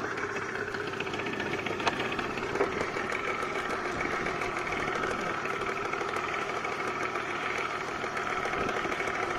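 Boat engine running at a steady trolling speed, an even drone with no change in pitch.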